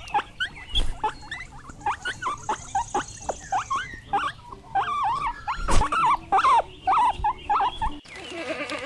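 Guinea pigs squeaking: many short, high chirps in quick succession. About eight seconds in, the sound cuts abruptly to something else.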